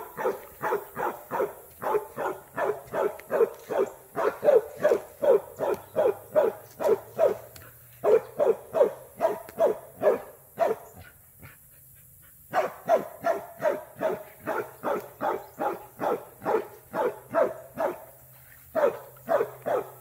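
Dog barking steadily in a rapid, rhythmic string of short barks, about two or three a second, breaking off for a second or so just past the middle and again briefly near the end.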